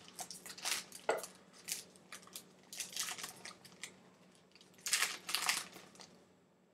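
A trading card pack wrapper being torn open and crinkled by hand, in irregular bursts of rustling, with the loudest burst about five seconds in.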